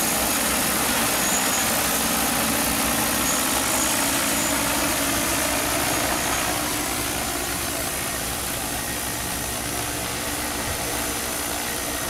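Agricultural crop-spraying multirotor drone flying low overhead, its rotors giving a loud, steady hum. It eases a little quieter after about six and a half seconds.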